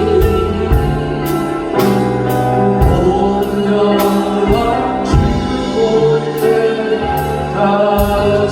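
Christian worship music: singing over a band, with drums keeping a steady beat of about two hits a second under sustained bass notes.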